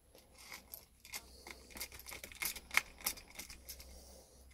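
Small clicks, taps and scrapes of plastic and metal parts being handled inside an open laptop chassis as a hard drive in its cradle is worked into its bay. The sharpest click comes a little under three seconds in.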